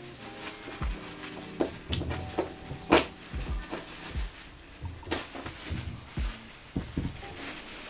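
Plastic masking sheet crinkling and rustling as it is pressed and smoothed against a surfboard by hand, with a string of small taps and knocks, the sharpest about three seconds in.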